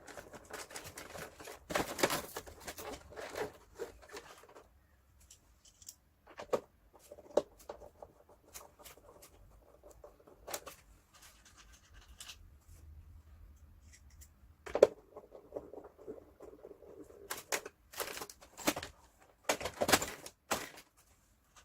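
Plastic parts of a Daikin air conditioner indoor unit being handled and fitted back together: rustling and scraping, with scattered sharp clicks and knocks that are loudest near the end.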